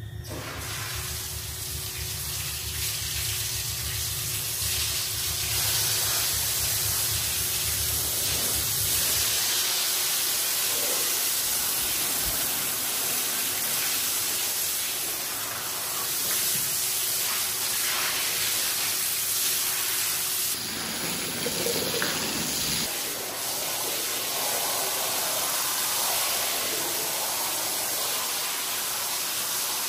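Water spraying steadily onto a shaggy rug as it is washed, a dense hiss. A low hum runs under it and stops about a third of the way in.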